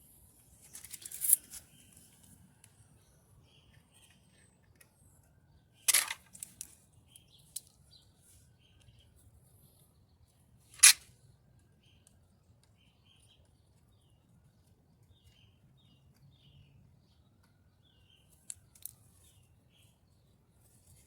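Sharp clicks and taps of hands working with dryer parts and glue while a felt strip is glued onto the drum support, the loudest about a second in, six seconds in and eleven seconds in. Faint bird chirps sound in the background.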